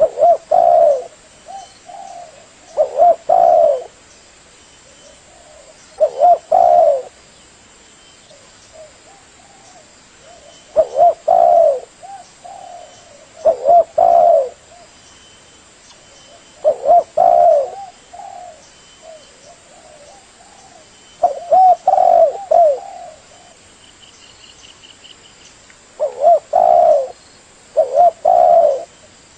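Spotted dove cooing: a loud phrase of two or three low coo notes, repeated every three to five seconds, with softer coos in between.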